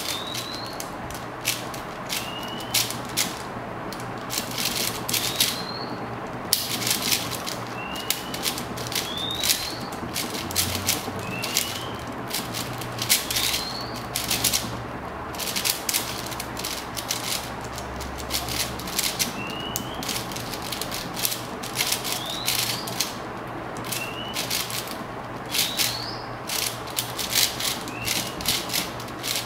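A 4x4 speed cube being turned by hand during a timed solve: an irregular stream of plastic clicks and clacks as its layers are turned.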